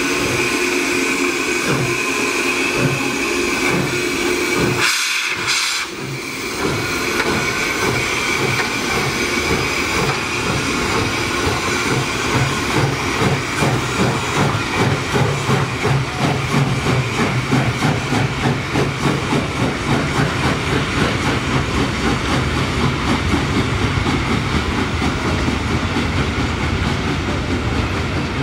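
ČSD 434.2 steam locomotive hissing steam, with a steady tone in the hiss. After a short break about five seconds in, it pulls its train away. From about twelve seconds in, a rhythmic beat builds up.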